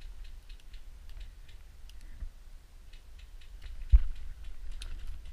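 Faint scattered clicks and ticks of gear handling and twigs, then about four seconds in a single sharp shot from an airsoft rifle.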